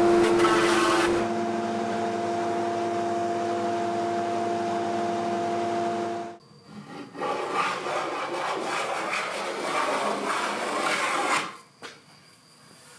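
A steady machine hum that cuts off about six seconds in. It is followed by about five seconds of rough rubbing as a hand tool works along an oak board.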